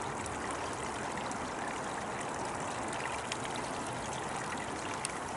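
Steady rushing of running water, with a few faint ticks.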